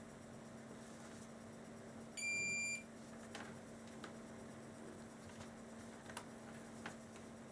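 Digital multimeter's continuity buzzer giving one short steady beep about two seconds in, the sign of a closed circuit between the probes, followed by several faint clicks of the test probes on the headset's contacts.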